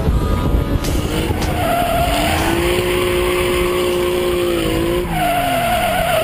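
A drifting car's engine running hard while its tyres skid and squeal. A pitched whine climbs over the first couple of seconds, holds, then drops away near the end.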